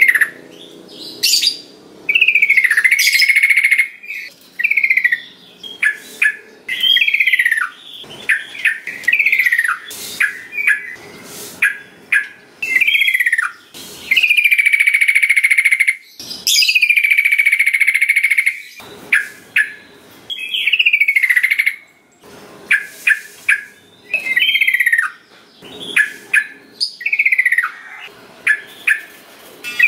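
Yellow-vented bulbul (trucukan) singing: bursts of short, falling whistled notes, with two longer held notes about halfway through.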